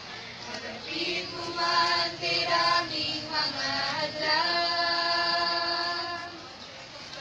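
A choir singing a hymn: sung phrases begin about a second in, lead into one long held note, and fade into a short breath pause near the end.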